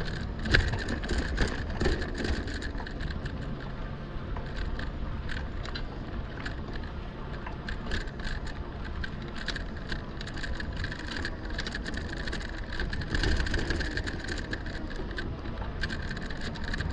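Lectric XP fat-tire e-bike being ridden over a rough trail: steady tyre and wind rumble with frequent rattles and clicks, and a steady high whine.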